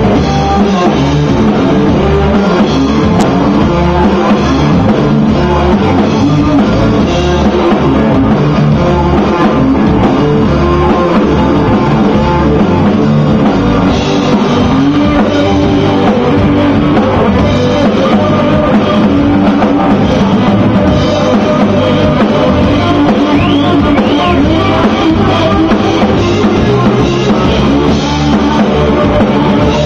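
Live rock band playing loud: electric guitar over a drum kit in an instrumental passage.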